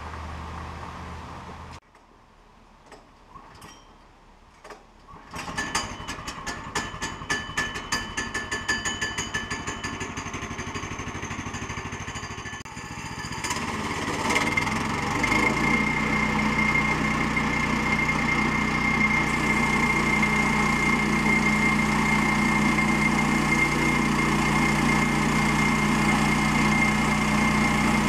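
The gasoline engine on a Woodland Mills HM122 portable band sawmill starts up and runs with a rapid, uneven beat. About halfway through it speeds up to a steady run with a thin high whine.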